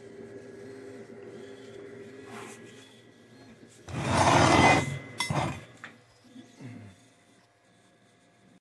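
A cast aluminium part rubbed and scraped on a wooden workbench as it is handled and set down: one loud scrape about four seconds in, then a few lighter knocks and rubs. A faint steady hum runs underneath for the first few seconds.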